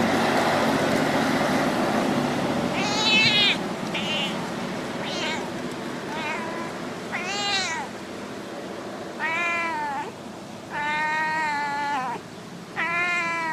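Cat meowing about eight times, soft, alluring calls that arch up and down in pitch, the longest drawn out for about a second. They follow a few seconds of steady noise.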